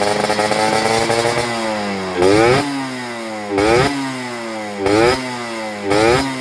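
Yamaha RXZ two-stroke single-cylinder motorcycle engine running, with its pitch sinking slowly, then blipped four times in short revs that each rise and drop back toward idle.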